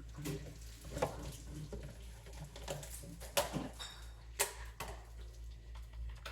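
Kitchenware being handled: a few sharp clinks and knocks, the loudest about three and a half and four and a half seconds in.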